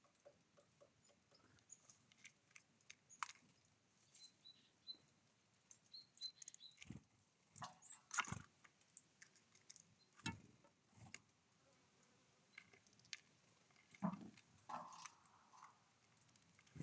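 Birds at a feeder: faint, scattered taps and clicks of pecking and hopping on the feeder, with a few faint high chirps about four to six seconds in.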